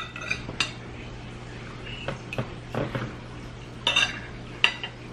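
A metal fork clinking and scraping against a plate while picking up pieces of fried fish: several short, separate clinks spread through, the sharpest about four and four and a half seconds in, over a steady low hum.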